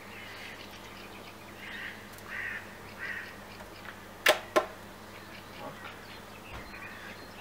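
Two sharp plastic clicks about a third of a second apart, from IQOS heated-tobacco devices and a stick inserter being handled at the table, over a quiet steady background hum.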